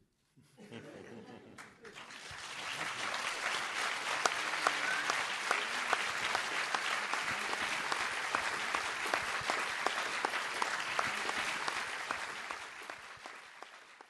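Audience applauding in a hall: the clapping starts about two seconds in, swells, holds steady, and fades away near the end.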